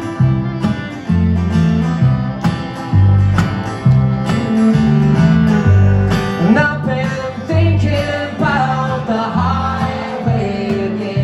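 Acoustic country-bluegrass trio playing an instrumental intro live: strummed acoustic guitar over a plucked upright bass line, with a fiddle playing a sliding melody from about six seconds in.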